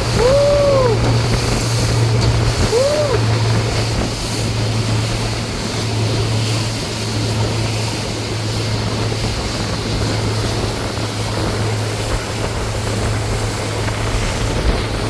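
Motorboat running under way: a steady low engine hum under the rush of water against the hull. Two short rising-and-falling tones sound in the first three seconds.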